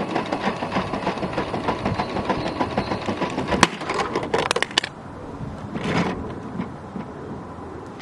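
Theo Klein Miele toy washing machine running with water in its drum, its small electric motor spinning the drum with a fast, even rattle. It stops about three and a half seconds in with a sharp click, followed by several quick plastic clicks and knocks as the toy is tipped and its door opened.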